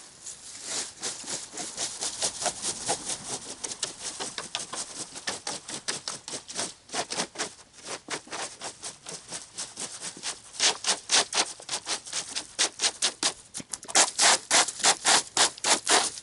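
Plastic fan-style leaf rake being dragged through dry, chopped-up leaves on grass in quick repeated strokes. The scraping grows louder and crisper over the last several seconds.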